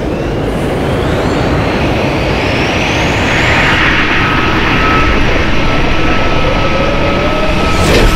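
Jaguar Vector V20E battery-electric powerboat running flat out, a dense rush of hull and spray noise with a whine that climbs in pitch over the first few seconds and then holds steady. A sharp, loud hit comes near the end.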